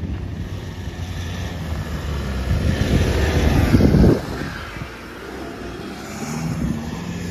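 Off-road 4x4 engine under load, revving up over about four seconds, then dropping off sharply and building again near the end.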